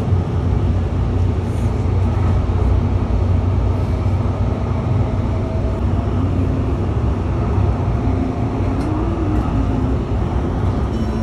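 Steady low rumble and running noise inside a moving light-rail train, with a faint wavering whine over it.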